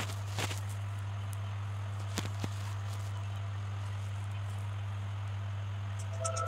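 A low steady hum, with a few faint clicks and a short run of faint high ticks near the end.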